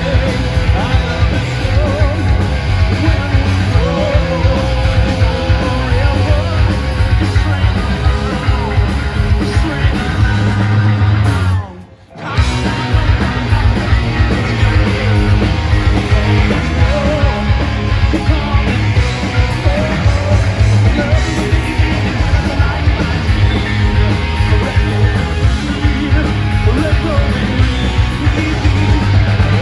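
Loud punk rock music with singing. It cuts out for a moment about twelve seconds in, then starts again.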